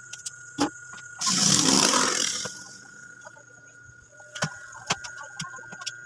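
Scattered small clicks and rattles of wires and a hand tool being handled, with a brief rushing noise about a second in.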